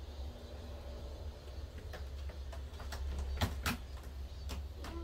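Cats scuffling on a sisal cat tree: a few scattered sharp taps and clicks of paws and claws, the loudest two about three and a half seconds in, over a steady low hum.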